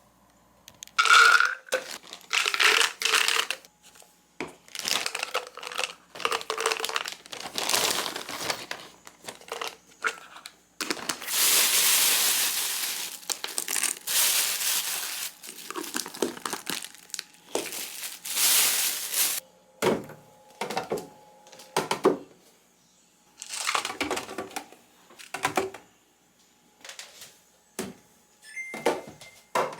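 Plastic packaging and bags crinkling and rustling as kitchen items are handled, in many irregular bursts with a longer stretch of continuous rustling in the middle. A short steady tone sounds near the end.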